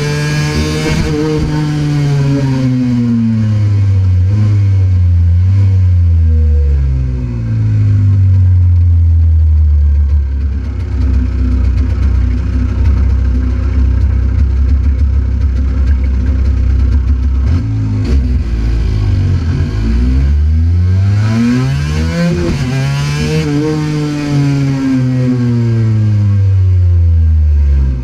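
Cagiva Mito 125's single-cylinder two-stroke engine heard from the saddle while riding: the engine note slides slowly down, runs low and steady for a while, then about two-thirds through climbs steeply as the throttle opens and falls away again near the end.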